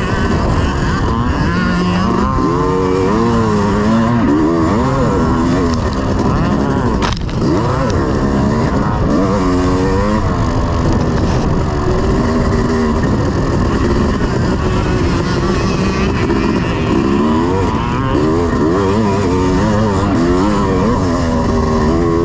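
1986 Honda CR500's two-stroke single-cylinder engine under hard riding, its pitch rising and falling again and again as the throttle is opened and shut. A single sharp knock comes about seven seconds in.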